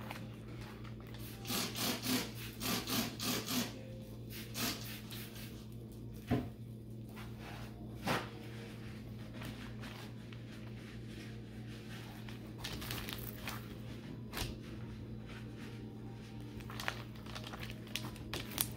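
Hands kneading and stretching cloud slime made of white glue and instant snow: a run of short rubbing and tearing strokes, busiest about two to four seconds in, then a few single sharp knocks and scattered softer squishes, over a steady low hum.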